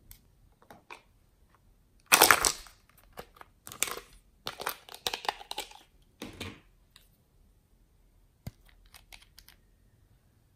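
Crinkling and crackling from a small plastic glitter bottle being handled and opened. The loudest burst comes about two seconds in, more crackles follow over the next few seconds, and there is a sharp click a little after eight seconds.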